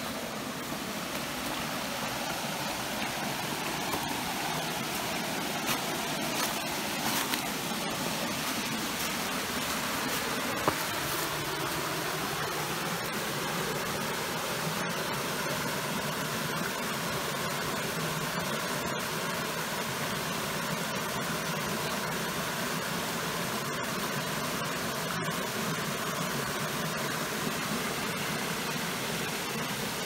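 Small woodland stream running over low rock cascades: a steady rush of water.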